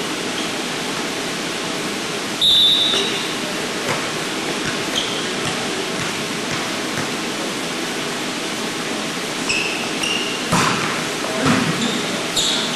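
Steady hiss of a gym hall. About 2.5 s in there is one short blast of a referee's whistle, signalling the serve. Near the end there are two sharp hits of a volleyball, the serve and the pass, among short shouts from the players.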